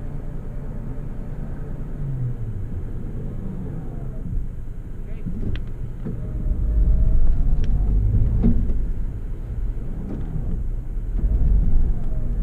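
Toyota FJ Cruiser's 4.0 L V6 and drivetrain rumbling, heard from inside the cab while driving on snow, growing louder about six seconds in and again near the end, with a few sharp knocks.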